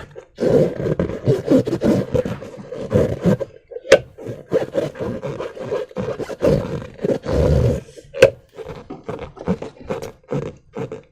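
Slime being squished and worked by hand, an irregular run of wet squelches with a couple of sharp snaps, about four seconds in and again about eight seconds in.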